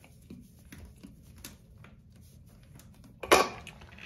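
Faint small clicks and ticks of a nut being spun by hand onto a toilet floor bolt against its plastic washer, then one short, much louder knock a little over three seconds in.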